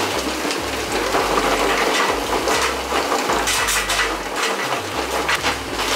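Charcoal pieces being pulled from a paper bag and dropped into a metal charcoal chimney starter, rustling and clattering against the metal in a run of sharp knocks.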